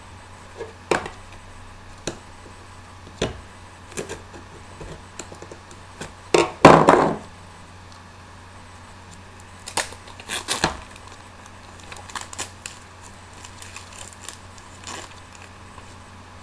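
A pack of playing cards being handled and its packaging worked open: scattered light clicks and knocks, with a louder rustling burst about seven seconds in and a few more around ten seconds.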